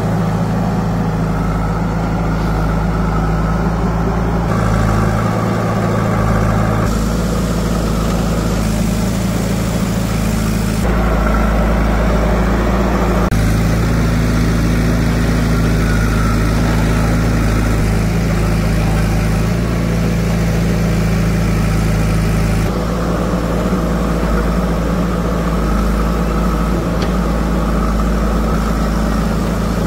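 Diesel engines of a JCB 3DX backhoe loader and farm tractors running steadily at low revs during earth loading. The engine note shifts abruptly several times.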